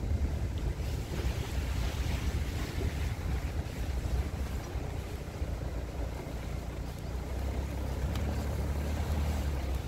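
A vehicle driving: a steady low rumble of engine and tyres, with wind noise on the microphone.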